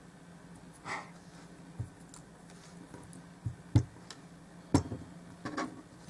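Glue bottle and cardboard being handled on a wooden tabletop: a few scattered light knocks and clicks, two sharper ones near the middle, over a faint steady hum.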